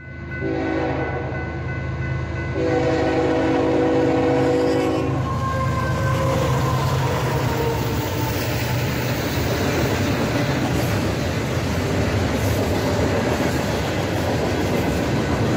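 Canadian Pacific diesel freight locomotives sound their horn in two long blasts, the second starting about two and a half seconds in. The diesel engines rumble as the locomotive passes, and the train of covered steel coil cars then rolls by with a steady rumble of wheels on rail.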